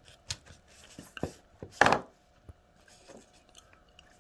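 Small hand-held objects handled and set down on a hard surface: a scattering of short clicks and knocks, the loudest about two seconds in, followed by faint rustling.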